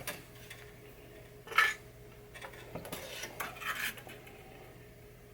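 Light metallic clinks and clatter of small tools being handled on a workbench while setting up to solder, the loudest about one and a half seconds in, followed by a run of smaller clinks; a faint steady hum underneath.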